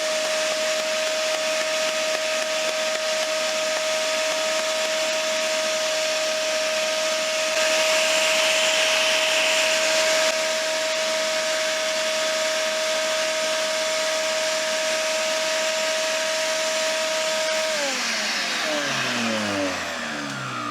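Ridgid 6-inch 4-amp sander with 60-grit paper, its dust port hooked to a 5 hp Shop-Vac, running with a steady high whine, louder and hissier for a few seconds in the middle. Near the end the motor winds down, its pitch falling away.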